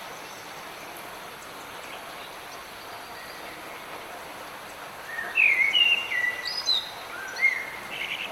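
Steady rain hiss, with a songbird singing a phrase of short whistled notes that slide up and down, starting about five seconds in and lasting about three seconds.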